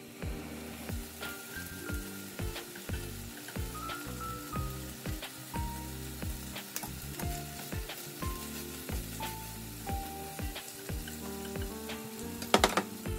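Sliced pork and pork cartilage frying and sizzling in a frying pan, with small clicks of wooden chopsticks stirring and separating the meat. A quick cluster of sharp, louder knocks comes near the end.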